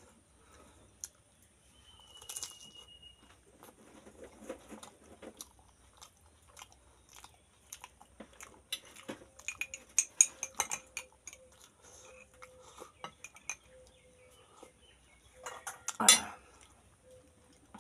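Crisp fried pani puri shells crunching as they are bitten and chewed, with a run of sharp crackles in the middle and one louder burst near the end, amid light clinks of plates and cutlery.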